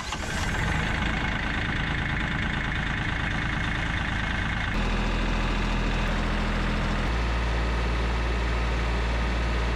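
Kioti compact tractor's diesel engine idling steadily as it warms up to operating temperature, run to check a newly installed frost-plug block heater for coolant leaks. Its tone shifts abruptly twice, about five and seven seconds in.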